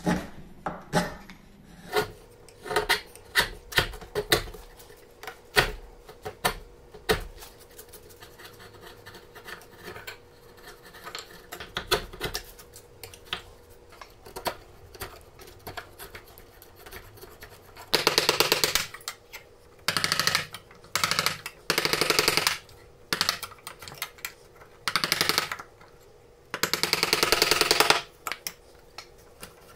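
Hand-tool work on a quartersawn beech plane body: a run of sharp clicks and knocks from chisel cuts, then a flat file rasping across the wood in about six strokes of roughly a second each, louder than the clicks, in the second half.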